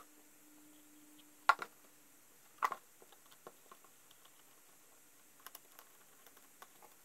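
Screwdriver turning the worm-drive screw of a metal hose clamp on a rubber pipe coupler: faint, irregular small clicks. Before it, two sharper knocks about one and a half and two and a half seconds in as the parts are handled.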